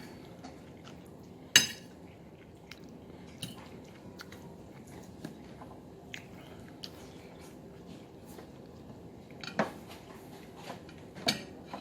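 A few sharp clicks and knocks of dishes and cutlery being handled, the loudest about a second and a half in and two more near the end, over quiet room sound.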